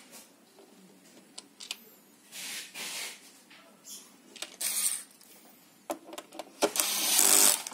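Light clicks and rustles as small screws are handled against the plastic base of a robot vacuum, then a cordless electric screwdriver whirs for about a second near the end, driving in a small screw.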